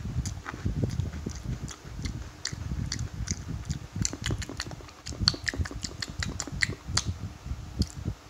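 Person chewing a mouthful of potato crisps: irregular crunching crackles over the low thuds of the chewing, the crackles thickest in the second half.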